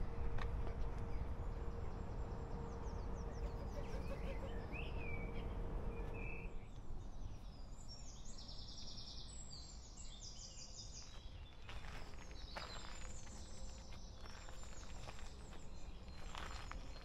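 A steady low outdoor rumble with a faint hum that stops about six seconds in. After that, birds sing in short repeated trills, and footsteps on a path come in from about eleven seconds.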